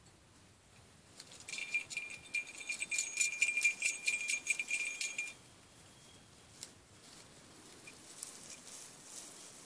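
A small metal bell jangling rapidly, with a steady ringing note under quick metallic clicks, for about four seconds; it starts about a second in and cuts off suddenly, followed by a few faint clinks.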